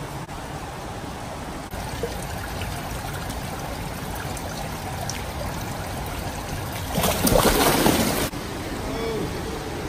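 Steady watery hiss of an indoor pool, then about seven seconds in a loud splash lasting about a second as a person plunges into the pool water.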